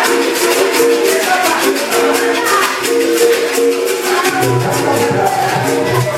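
Capoeira music led by the berimbau, its struck wire giving held twangy notes while the caxixi basket rattle shakes in a quick steady rhythm. A lower, deeper note joins a little over four seconds in.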